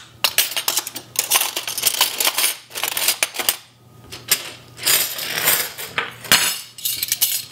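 Stainless steel spoons and forks clinking and jingling as they are handled, dropped into a cutlery organizer and picked up from a countertop, with a brief lull about halfway through.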